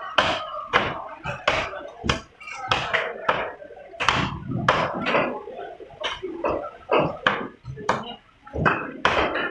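Cleaver chopping through a large black bass on a chopping block: a quick, irregular run of sharp chops, about two a second. Market voices are heard faintly underneath.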